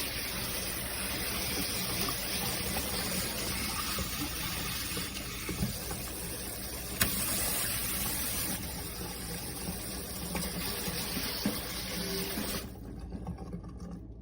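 Water spraying steadily from a faucet sprayer shower head, a constant hiss that cuts off about a second before the end.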